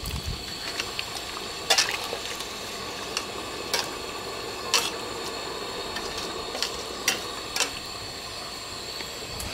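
A metal ladle stirring thick curry in a stainless steel pot, clinking sharply against the pot a handful of times, over a steady hiss from the pot on the burner.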